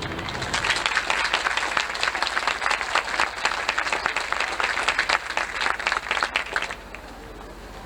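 Stadium crowd applauding with a dense patter of many hands clapping, which dies away sharply near the end.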